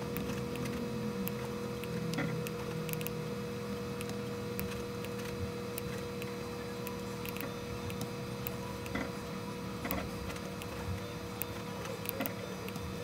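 Steady machine hum with a constant tone, broken by scattered short clicks of a computer mouse as items are clicked and dragged.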